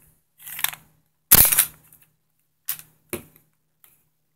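KJW 1911 gas-blowback airsoft pistol being reassembled, its slide fitted back onto the frame: a short sliding scrape, then one loud sharp clack, followed by two lighter clicks.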